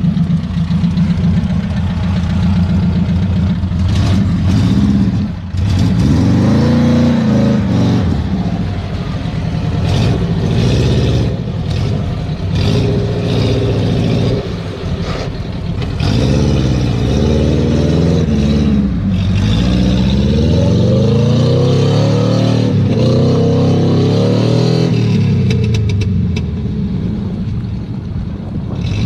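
Car engine revving hard in mud, its pitch climbing and falling again and again as the vehicle struggles for grip.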